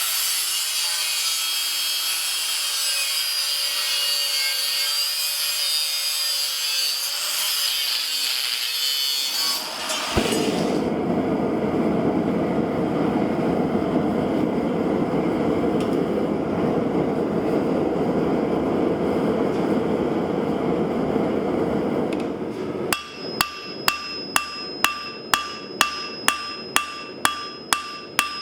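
A steady high hiss, then a lower steady rushing noise. Near the end come evenly spaced hammer blows on steel at about two a second, each ringing.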